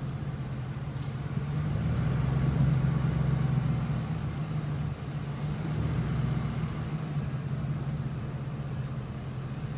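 Pickup truck engine running as the truck rolls slowly, a steady low hum that grows louder for a couple of seconds about two seconds in, then eases back.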